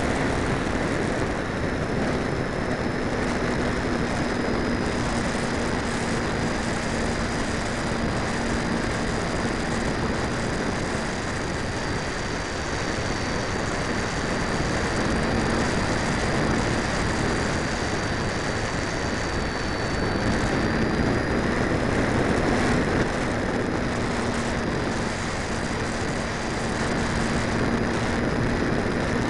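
Steady rush of airflow over a camera riding on an RC glider in flight, with the low buzz of its electric motor and propeller. The buzz drops away about eleven seconds in and comes back about twenty seconds in.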